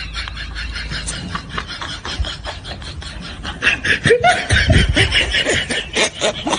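Laughter in quick, repeated pulses, growing louder and higher about four seconds in.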